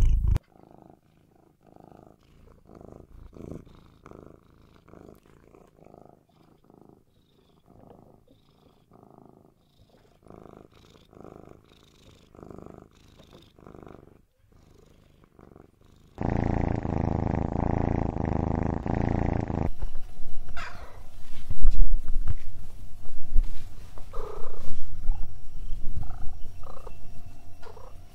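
Domestic cat purring: quiet purring in slow pulses with each breath, then much louder, close purring from about sixteen seconds in.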